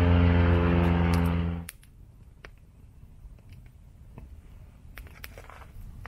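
Light aircraft's propeller engine droning steadily overhead, cutting off abruptly under two seconds in. After that, a quiet wood campfire with scattered faint crackles.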